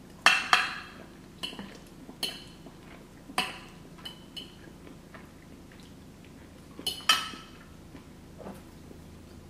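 Metal fork clinking and scraping against a glass baking dish as pasta is scooped up, a string of sharp clinks at irregular intervals, loudest near the start and again about seven seconds in.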